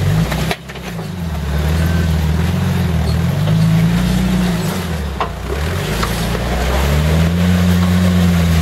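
1988 Jeep Cherokee XJ's engine pulling at low speed as the Jeep crawls over boulders. Its note rises and falls several times as the throttle is fed in and backed off, with a short dip in level about half a second in.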